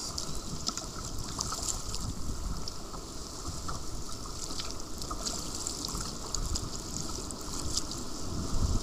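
Sea water splashing and lapping around a kayak as it is paddled, with scattered drips and splashes and some wind rumble on the microphone. A louder surge comes just before the end.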